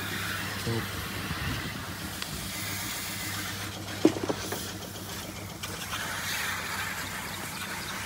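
Steady low engine hum under outdoor background hiss, with one sharp knock about four seconds in.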